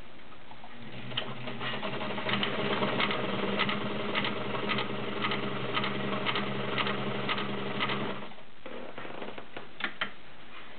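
Kenmore Model 33 all-metal sewing machine with a 1.2 amp motor sewing an automatic blind stitch pattern: a steady motor hum with regular clicks about twice a second. It stops about eight seconds in, followed by two light clicks near the end.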